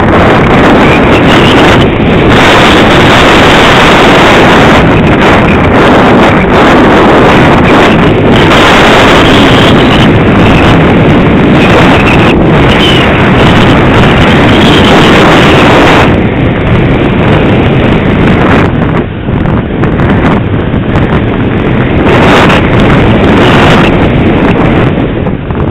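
Loud wind rushing over the onboard camera microphone of an Easystar II RC foam plane in flight, a dense rumbling hiss. About 16 s in, the hiss loses its top end and eases slightly.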